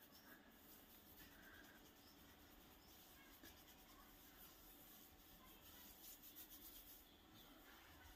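Near silence, with faint rubbing and scratching of fingertips massaging oiled hair on the scalp.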